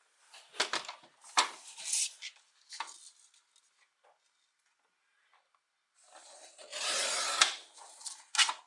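A sheet of paper being handled and cut in half: a few short crinkles and taps, a pause, then a drawn-out scraping cut about seven seconds in that ends in a sharp snap, and one more click near the end.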